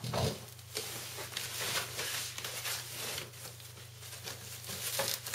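Plastic wrapping and cardboard packing rustling and crinkling as a boxed flat-screen TV is handled and pulled out, with a sharper knock near the start and another near the end.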